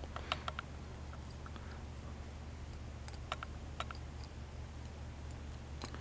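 Faint small clicks of pliers squeezing and working the tabs of a crimp-on electrical terminal: a quick cluster of clicks at the start, then a few scattered single clicks, over a low steady hum.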